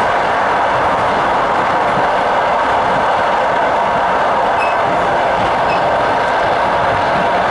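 Steady running noise of a passenger train heard from on board, an even rumble and rush of the carriage moving along the track.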